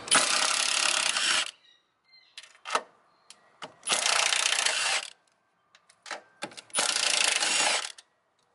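Milwaukee cordless power tool with a socket running in three bursts of about a second each, spinning off the strut tower nuts on a Subaru's front strut mount. Short metallic clicks come between the bursts as the socket and nuts are handled.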